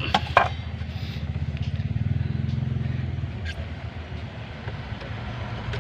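A motor vehicle's engine running steadily, a low hum with a fast even pulse, easing off after about three seconds.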